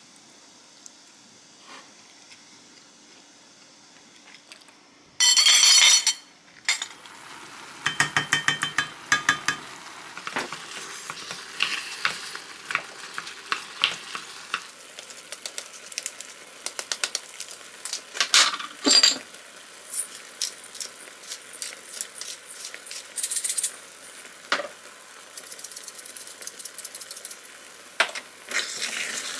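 Wooden spoon stirring cold rice into a simmering sauce of milk, chicken stock and tomato sauce in a frying pan, with sizzling and many knocks and scrapes of the spoon against the pan. The cooking sounds begin a few seconds in, after a short, loud burst of noise.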